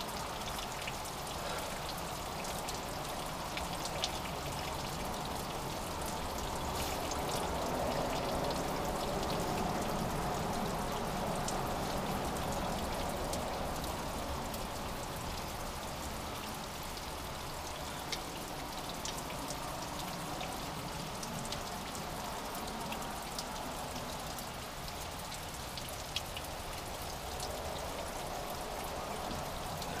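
Small drip waterfall: thin streams of water dripping and trickling down a mossy rock face. It makes a steady, rain-like patter with a few sharper drip ticks.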